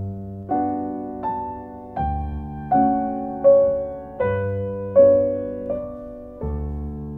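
Slow piano music: chords and single notes struck about every three-quarters of a second over low bass notes, each one dying away.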